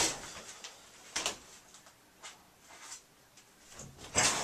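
Shower curtain being drawn along its rod, loudest at the start, followed by a few soft knocks and rustles; near the end a hiss rises as the shower is turned on.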